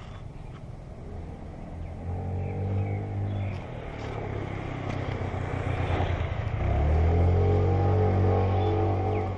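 A motor vehicle's engine running nearby. Its low hum builds about two seconds in and dips in pitch, then rises again and is loudest in the last few seconds before cutting off suddenly near the end.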